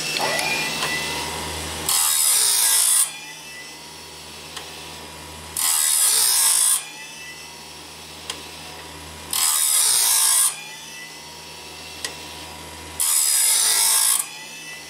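Chainsaw sharpener's abrasive wheel grinding the teeth of a sawmill bandsaw blade on a homemade automatic sharpener. There are four loud grinding passes of about a second each, one roughly every three and a half seconds. Between them the wheel spins on more quietly while the blade is moved on to the next tooth.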